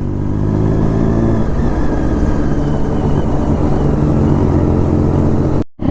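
Triumph Daytona 675's inline three-cylinder engine running at low revs while being ridden, its pitch shifting a couple of times. The sound drops out for an instant near the end.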